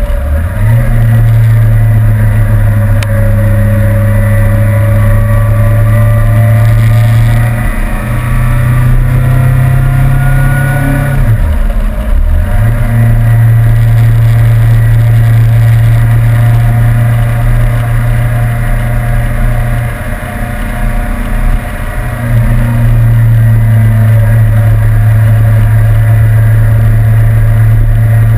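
Suzuki GSR750's inline-four engine under way at speed, heard from a mount on the bike. Its pitch climbs as it pulls between about eight and eleven seconds in. The revs drop briefly at the start and again about twelve seconds in, and it eases off around twenty seconds in before pulling strongly again.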